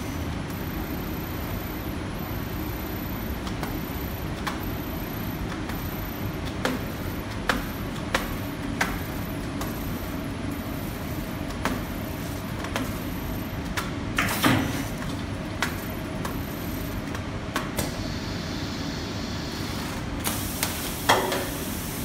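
Hennopack MS207CR automatic turntable pallet stretch wrapper running with a steady machine drone, with scattered clicks and knocks, the loudest about halfway through. Near the end a hiss comes in and a sharp clack follows as the automatic film clamp and cut unit works.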